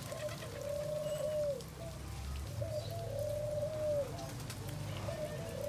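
Domestic pigeons cooing: three drawn-out coos, each opened by a few short notes, coming about every two and a half seconds.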